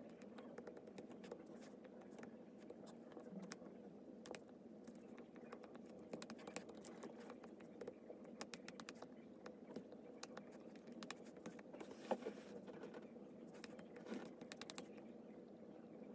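A stylus tip tapping and ticking against a tablet's glass screen while drawing: irregular light clicks, some in quick runs, with a sharper tap about twelve seconds in, over a low steady hum.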